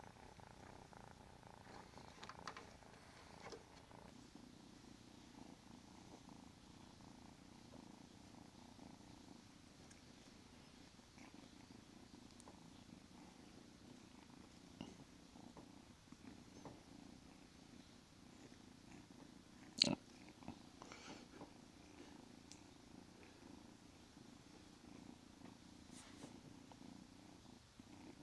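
Kitten purring, a faint steady rumble, with one sharp click about two-thirds of the way through.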